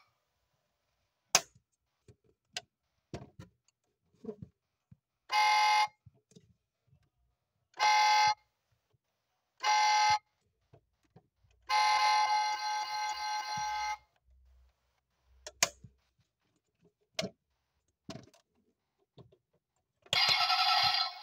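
Electronic car-horn sound from the toy's small speaker: three short honks, then one longer honk of about two seconds. Sharp little clicks of plastic parts, such as doors and the horn button, come between the honks. A louder, fuller sound from the toy starts near the end.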